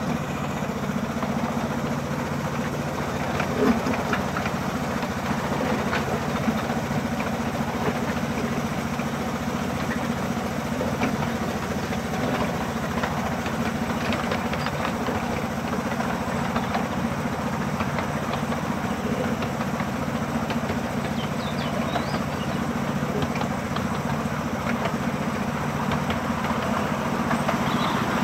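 Engine of a 7 1/4 inch gauge miniature railway locomotive running steadily while the train travels along the line.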